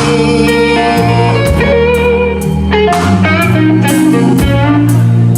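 Live blues band playing between sung lines: an electric guitar fill over bass, keys and drums striking a steady beat.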